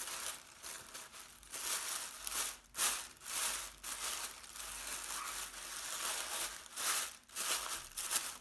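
Tissue paper crinkling and rustling in irregular bursts as the folded layers of a tissue paper flower are pulled apart and fluffed by hand.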